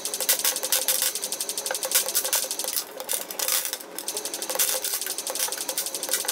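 Small toy figures rattling against a concrete floor: a dense, fast clicking with a steady hum underneath, thinning for a moment around three seconds in.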